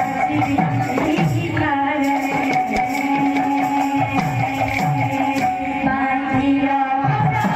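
Odia devotional kirtan music: a hand drum with bass strokes that glide down in pitch, under a held melodic note.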